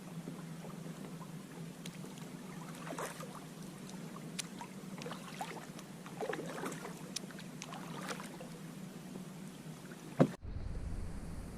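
Faint small clicks and knocks over a steady low hum, with one sharp, louder click near the end, after which the background changes abruptly.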